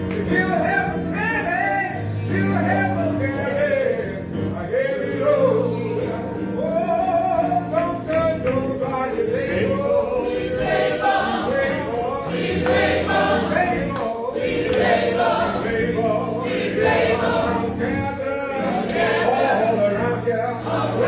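Church choir singing a gospel song, with sustained low accompanying notes underneath.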